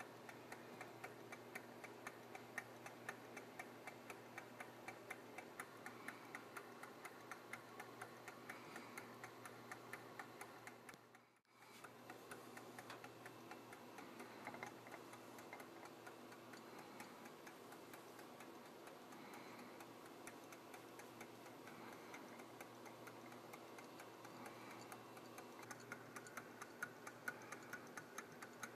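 Gakken low-temperature-differential Stirling engine running, its mechanism giving a faint, steady, rapid ticking. The sound drops out briefly about eleven seconds in.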